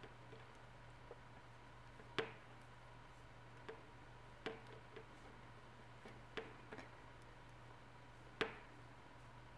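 Turquoise plastic knitting needles clicking against each other as stitches are bound off: about eight sharp, uneven clicks, the loudest about two seconds in and near the end, over a low steady hum.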